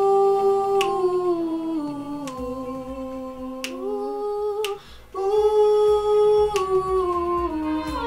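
A voice singing a vocal exercise: held notes that step down a scale in two phrases, with a brief break about five seconds in.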